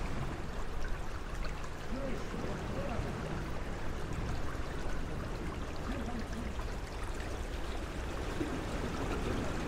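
Steady rush of running water, with faint distant voices now and then.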